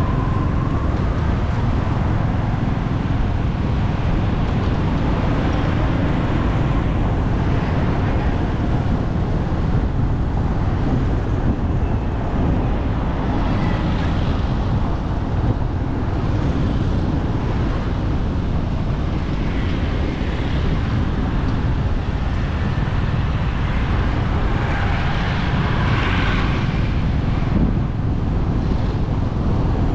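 Steady wind rush on the microphone mixed with road and traffic noise while riding along a busy city road among cars and motorbikes.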